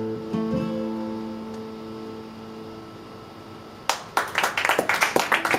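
A final guitar chord ringing out and fading away, then an audience breaking into applause about four seconds in.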